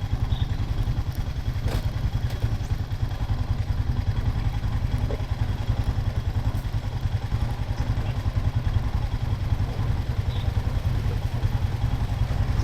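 Four-wheeler (ATV) engine idling steadily, a low, rapid pulsing rumble.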